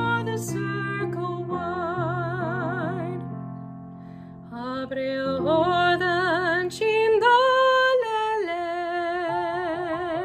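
Slow, meditative background music: a high voice sings long held notes with a wide vibrato, without clear words, over soft sustained keyboard notes. It fades about four seconds in, then swells again.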